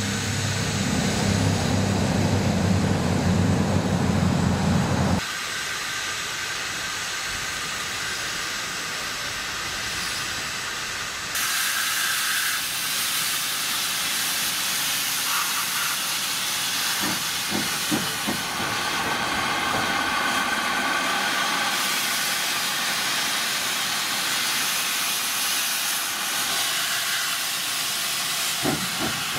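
Steam hissing steadily from the open cylinder drain cocks of Great Western Saint class 4-6-0 locomotive No. 2999, getting louder about eleven seconds in. A low, steady rumble is heard for the first five seconds, and a few short knocks come later.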